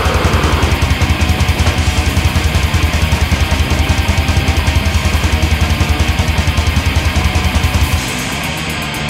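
Heavy metal music: distorted electric guitar over a fast, steady kick drum. About eight seconds in, the drums and low end drop out and the music gets quieter.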